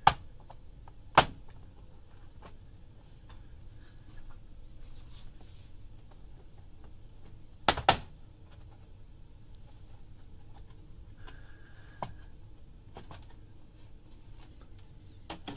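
Bottom cover of a Dell Latitude 5520 laptop being pulled off by hand: sharp snaps as its retaining clips let go, the loudest about a second in and a double snap near eight seconds, with a few softer clicks later.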